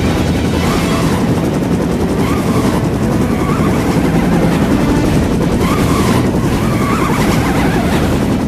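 Military helicopter hovering close overhead, its rotor and engine noise loud and steady.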